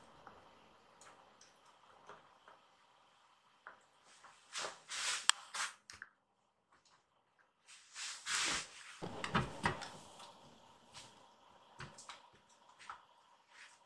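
Kittens scuffling and scampering on tatami mats: soft thuds, rustles and scattered light clicks, with two louder rustling bursts about five seconds and eight to nine seconds in. Near the end come a few light clicks of claws on a wire-grid cat tower as a kitten climbs it.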